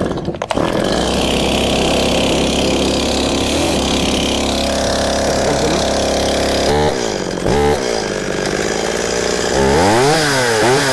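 Stihl MS 261 two-stroke chainsaw engine catching on the pull-start within the first second after the choke is set one step up, then running steadily. About seven seconds in it gives two short throttle blips, and near the end it revs up and down several times.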